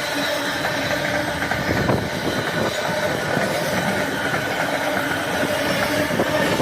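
Freight train hauled by a Class 66 diesel locomotive running past, a steady, loud rumble of engine and wagons.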